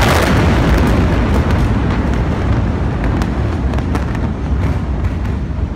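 Huge explosion and fireball: a loud, continuous rumble that slowly eases, with a few sharp cracks and pops in the middle.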